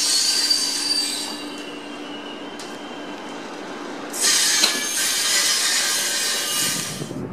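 Wheels of two passing Sr1 electric locomotives squealing on the rails. The squeal fades to a lower rumble after about a second, comes back louder about four seconds in, then stops near the end.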